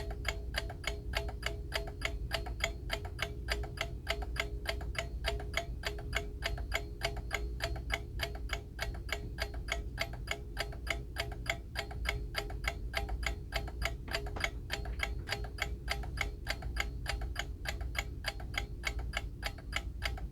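Vintage Rhythm bell alarm clock, its mechanical movement ticking steadily at about five ticks a second.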